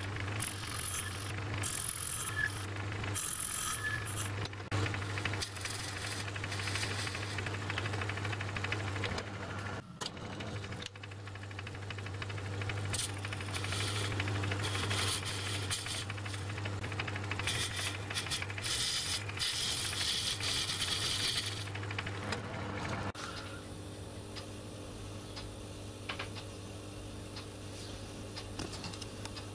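Metal-turning lathe running, its motor humming steadily while a cutting tool takes a cut on a small part in the chuck, with irregular scraping and rattling from the cut and the swarf. About 23 seconds in the sound changes to a smoother, steadier hum with less scratching.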